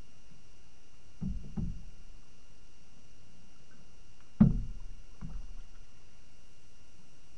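Dull thuds of paddling in an inflatable canoe, carried through the boat to the mounted camera: two soft knocks about a second in, the loudest one a little past the middle, then a smaller one just after.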